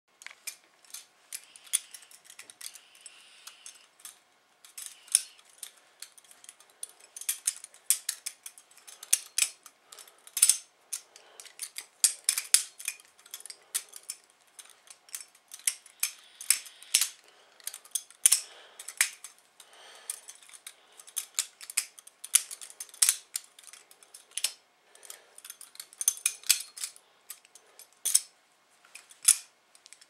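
Butterfly knife being flipped and spun by hand: rapid, irregular metallic clicks and clacks as its handles swing open and shut, in quick flurries with a few short pauses.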